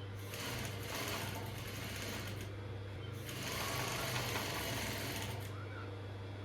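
Sewing machine stitching in two runs of a couple of seconds each, stopping briefly about three seconds in, over a steady low hum.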